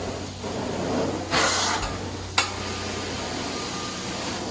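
Hot-water-extraction carpet cleaning: steady hiss and hum of the extraction wand and vacuum hose working the carpet. A louder burst of hiss about a second and a half in lasts half a second, and a sharp click follows about a second later.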